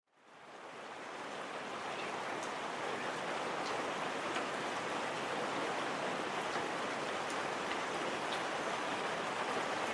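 Steady rain fading in over the first second, then holding even, with a few faint drip ticks scattered through it.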